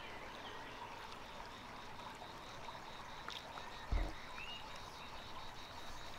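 Quiet outdoor ambience by a slow river: a steady faint hiss with a thin steady whine and a few faint chirps, broken by a brief low thump about four seconds in.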